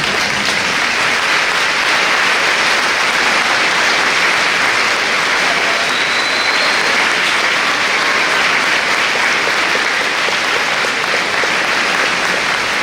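Sustained applause from a large audience, holding at an even level.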